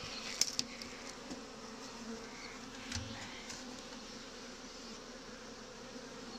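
Honeybees buzzing at a hive entrance, a steady hum of many wings as they fly in and around the entrance disc. A few light clicks come about half a second in and again around three seconds in.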